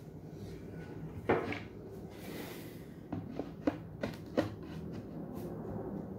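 Laminated MDF panels being handled and fitted together: a light knock about a second in, a brief sliding rub, then a run of small taps and knocks.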